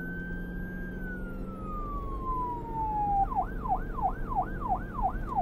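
Siren sound effect: a long wail that rises and then falls slowly, switching about three seconds in to a fast yelp that cycles about three times a second.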